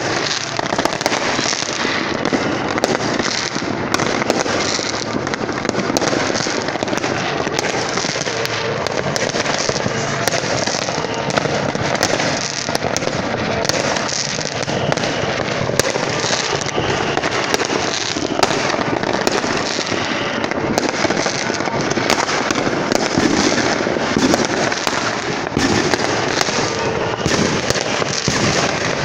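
Many fireworks and firecrackers going off at once, making a steady, dense crackling din with frequent sharp bangs standing out.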